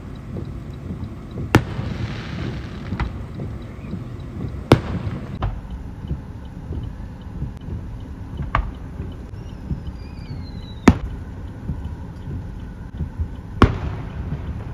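Aerial firework shells bursting: about six sharp bangs a couple of seconds apart, the loudest about five and eleven seconds in, over a steady low rumble.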